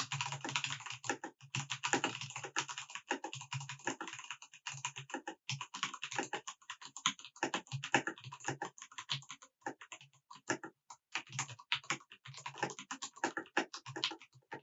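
Normal typing on a mechanical keyboard with tactile switches: a fast, irregular run of keystroke clacks without any sharp click, with a short pause a little after two-thirds of the way through.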